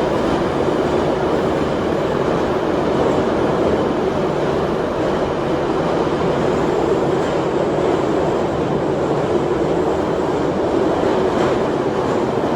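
Moscow Metro type 81-717 electric train running at steady speed on the line. The noise of wheels and running gear holds even throughout, with no distinct rail-joint clicks.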